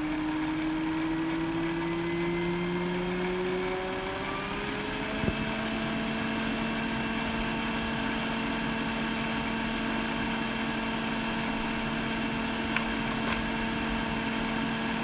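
A small motor or fan whose hum rises in pitch over about five seconds, then runs steadily, with a few faint clicks near the middle and toward the end.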